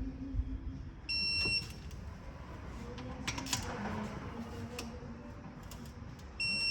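Digital torque wrench beeping as M8 timing-cover bolts are tightened to 20 foot-pounds: two half-second beeps about five seconds apart, the signal that the set torque has been reached. Ratchet clicks and tool knocks come between them.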